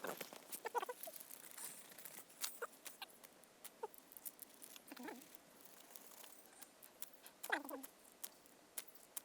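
Faint, irregular clicks and crackles of a small wood campfire, with a few brief cries that drop in pitch.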